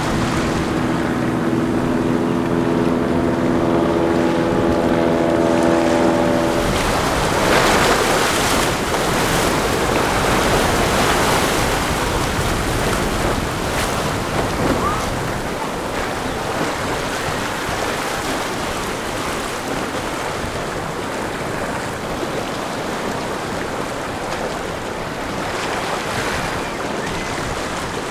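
Outboard motor on a small Boston Whaler running with a steady hum for about the first seven seconds. Then the rush of rough inlet waves breaking and spraying off a cruiser's hull as it crashes through them, with wind on the microphone.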